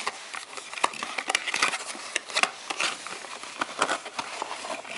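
Cardboard watch packaging handled by hand: a card sleeve slid off and the box flap opened, giving an irregular run of short scrapes, taps and rustles.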